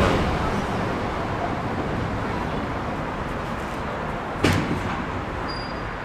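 Wooden vertical-lifting landing door of a 1911 car elevator coming down over a steady background rumble, closing with a single heavy thump about four and a half seconds in.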